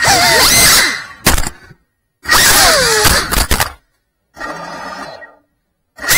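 FPV drone motors and propellers whining in short loud bursts, their pitch gliding up and down as the throttle changes. The bursts cut off abruptly into silence between them, about four times.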